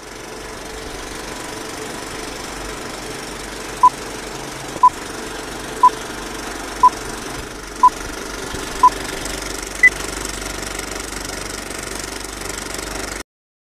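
Film projector running with a steady clatter, under the beeps of a film countdown leader: six short tones a second apart, then a seventh, higher beep. The projector noise stops suddenly near the end.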